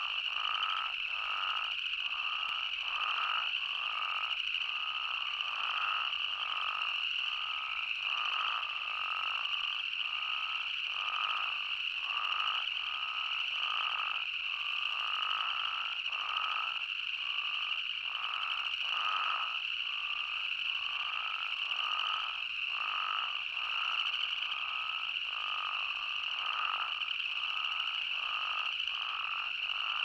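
A chorus of spadefoot toads calling, many short overlapping calls at about two a second, over a constant high-pitched trill.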